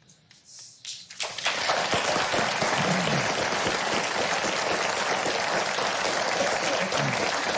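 Studio audience applauding, starting about a second in after a brief hush and holding steady.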